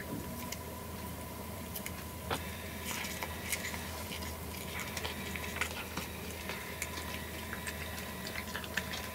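Cat chewing cat grass: irregular small crunching clicks, several a second.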